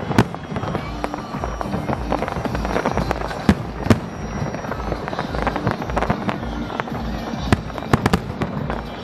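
Fireworks bursting overhead: a steady crackle broken by sharp bangs, with a pair of loud reports a little after three seconds and a cluster near the end.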